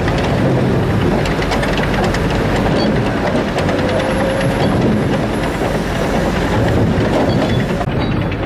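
Sawmill machinery running loudly: a steady industrial din with constant rapid clattering and knocking.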